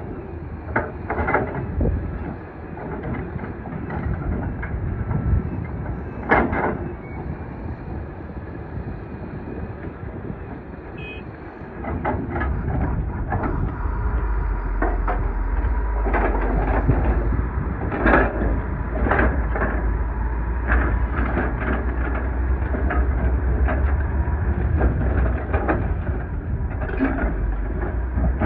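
Doosan DX420LCA excavator heard from inside the cab: the diesel engine runs with a deep rumble under repeated clanks and knocks from the bucket and hydraulics working gravel. About halfway through, the engine's low rumble rises sharply and stays louder as the machine works harder.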